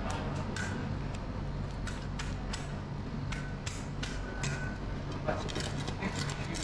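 Fish-market background noise: a steady low hum with scattered light clicks and knocks.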